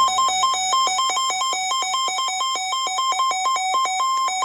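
Weather radio alert alarm sounding for a severe thunderstorm warning: a buzzy electronic tone flipping rapidly and unevenly between two pitches.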